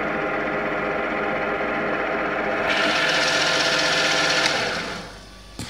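End mill on a Kompas VF45GS CNC milling machine cutting the edge of a steel plate: the spindle runs with a steady hum. About halfway through, a harsher, hissing cutting noise grows louder, then dies away about five seconds in, with a short click near the end.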